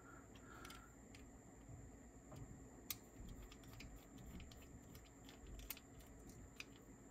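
Faint, scattered small clicks of a small screwdriver tip working on a cassette recorder's plastic pinch roller assembly to take it apart, over near silence.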